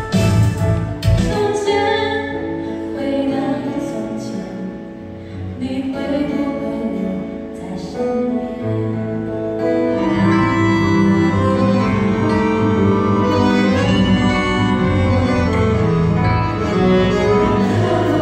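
Live concert music heard from the audience: a flute over an electronic backing, then, after a change about nine to ten seconds in, a woman singing with a string ensemble.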